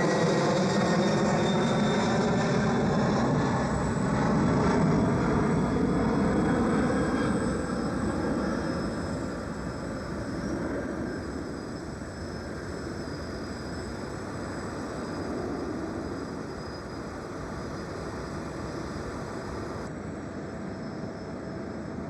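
Large jet aircraft passing close by, its engine noise sweeping and phasing as it goes. It fades over about ten seconds to a steadier, quieter jet rumble with a thin high whine.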